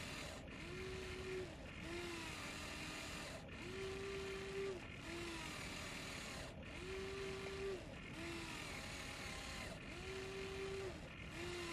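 Huina 1593 RC excavator's small electric motors whining in short runs as the arm works: a longer, higher whine and then a shorter, lower one, repeating every couple of seconds over a steady noise.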